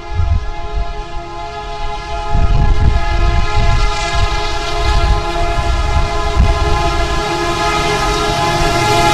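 Diesel freight locomotive's air horn sounding one long steady chord over a low rumble, getting louder as the train led by SD70MAC locomotives approaches.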